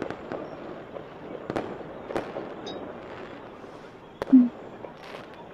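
Distant fireworks: scattered sharp bangs and light crackling, a few seconds apart, over the steady hiss of a room fan. A brief low tone sounds about four seconds in.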